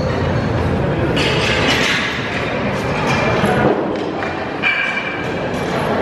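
Busy hall noise: a steady din of overlapping voices with a few thuds and knocks.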